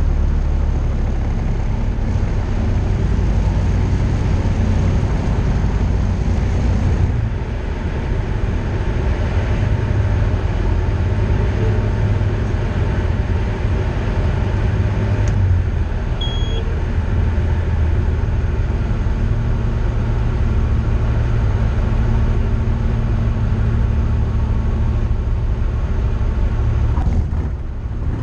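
Light aircraft engine and propeller droning inside the cockpit of a Tecnam P2002JF during the landing and rollout. The level dips briefly about seven seconds in and again near the end. A short high beep sounds about sixteen seconds in.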